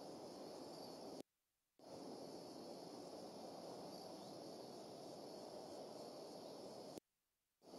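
Steady faint hiss from an outdoor nest-camera microphone, with a thin high electronic whine. The audio cuts out completely twice, for about half a second each time, once about a second in and once near the end.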